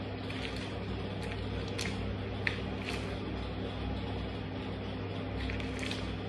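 Rubber soles of Converse high-top sneakers crushing and grinding orange halves on a tiled floor: short wet squelches and crackles of pulp and peel, several in the first three seconds and a couple more near the end. A steady low hum runs underneath.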